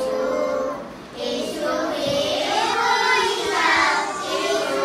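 Young children singing together, a held melody with a short break about a second in.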